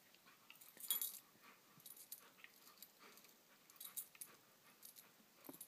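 A Samoyed puppy rolling on carpet with its paw stuck in a rubber ball toy: faint scattered clicks and rustles with soft dog sounds, the loudest about a second in.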